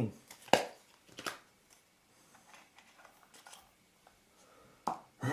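A few light clicks and taps from small shutter parts and tools being handled, with faint rustling between them.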